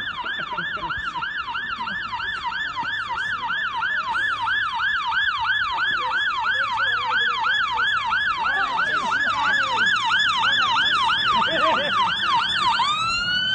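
Scottish Fire and Rescue Service fire engine's siren on a fast yelp, about three sweeps a second, growing louder as the appliance approaches. Near the end it switches to a slow rising wail.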